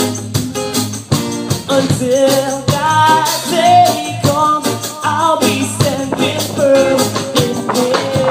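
Live reggae-gospel band playing: a man sings the melody over strummed acoustic and electric guitars, bass, drum kit and hand percussion with a steady beat.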